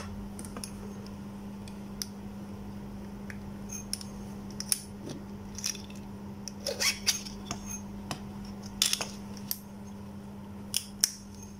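Small metal and plastic torch parts being handled and screwed together, giving scattered light clicks and scrapes that cluster in the second half, over a steady low hum.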